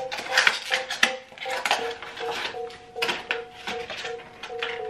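Rustling and clicking of a skincare kit's packaging being handled and opened, in a quick run of short strokes, over background music.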